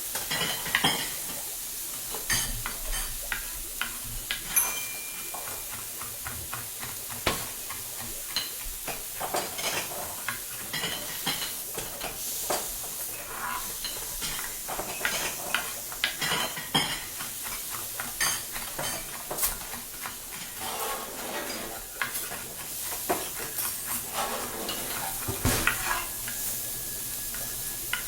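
Kitchen ambience: a steady frying sizzle under frequent small clinks and knocks of utensils against pots, pans and dishes.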